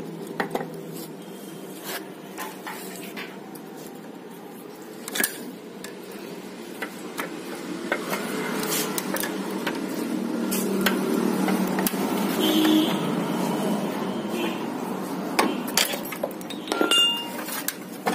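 Scattered metal clinks and knocks from a scooter's front hub and brake plate being handled on the stub axle, a few of them ringing briefly. Underneath runs a steady low rumble that swells in the middle.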